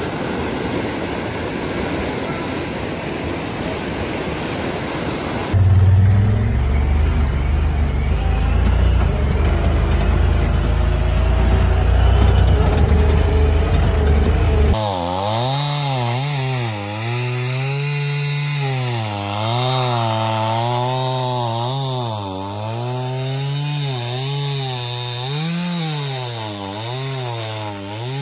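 A steady rushing noise, then suddenly a deep, loud rumble, then suddenly a small engine running with its pitch rising and falling over and over.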